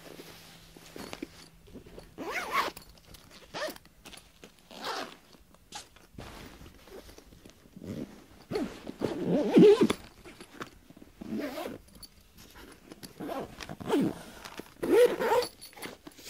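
Repeated short rasping scrapes close to the microphone in uneven bursts, loudest about nine to ten seconds in and again near the end.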